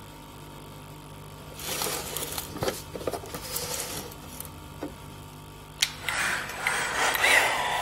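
A video's soundtrack playing over hall loudspeakers: a steady low hum, then scattered crackles and clicks from about a second and a half in, thickening into a dense, continuous rattling noise near the end.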